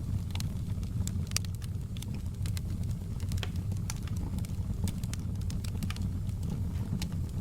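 Wood fire crackling in a fireplace: frequent sharp pops and snaps at irregular intervals over a steady low rumble of the flames.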